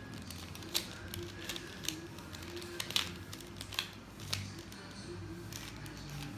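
Plastic mirror cube being turned quickly during a speed solve: its layers click and clack irregularly as they are twisted and snap into place.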